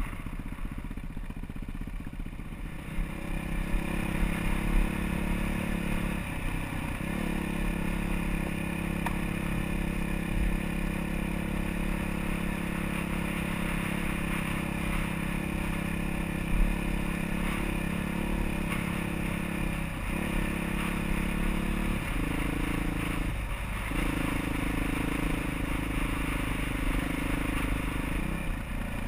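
Off-road motorcycle engine running at a steady pitch while riding a rough trail, with brief drops in the engine note a handful of times, and clattering and scraping from the bike over the ground.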